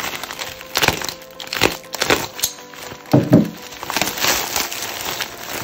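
Thin plastic wrap crinkling and tearing in irregular bursts as it is slit with a small safety cutter and pulled apart by hand, over background music. A brief low sound stands out about three seconds in.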